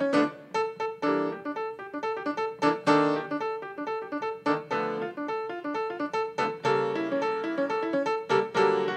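Solo grand piano played live: a quick, busy stream of struck notes and chords, with one middle-register note coming back again and again.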